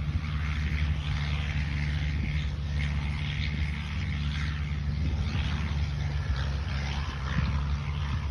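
Inboard engine of a small wooden hua thong boat running steadily under way, with water and wind rushing over it.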